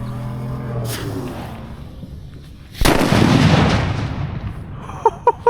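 A large firecracker exploding about three seconds in: one sharp, very loud blast that rumbles away over about a second and a half.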